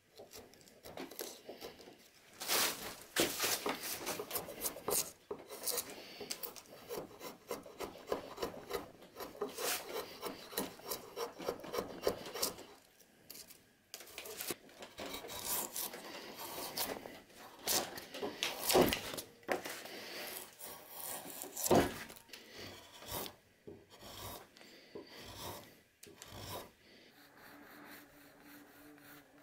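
Drawknife shaving a wooden handle blank: a long run of short, irregular scraping strokes as the blade pares off curls of wood, which die away near the end.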